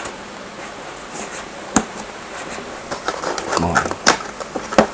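Handling noise from a cardboard motherboard box and its packaging: scattered sharp clicks and knocks, one near two seconds in and two near the end, with a brief low voice sound in between.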